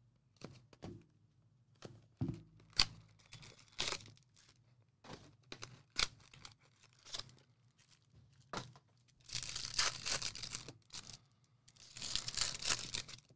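Wrapping on a sealed box of baseball card packs being handled and torn open: a series of short rustles and clicks, then two longer tearing rips in the second half.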